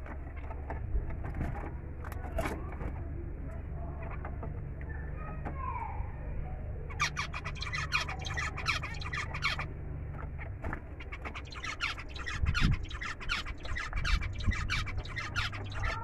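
Zebra finches calling in a cage: scattered chirps at first, then from about halfway a dense run of rapid chattering that breaks off briefly and resumes until near the end, over a low steady hum.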